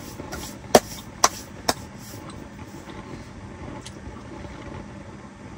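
Three sharp clicks or knocks about half a second apart, the first the loudest, over a steady low hiss.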